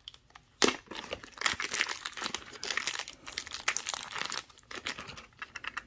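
Clear plastic wrapping crinkling and crackling as it is handled and pulled off a stack of silver rounds, with a sharp crackle a little over half a second in.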